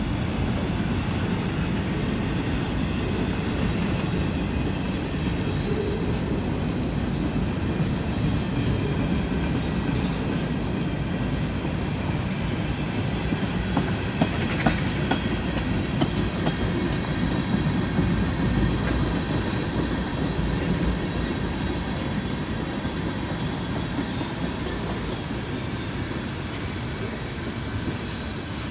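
Freight train cars rolling past in a steady rumble, with a cluster of sharper wheel clacks about halfway through.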